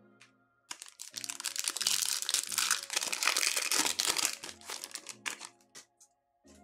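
Foil trading-card pack wrapper crinkling loudly as it is pulled open, starting just under a second in and dying away about five seconds in. Background music plays throughout.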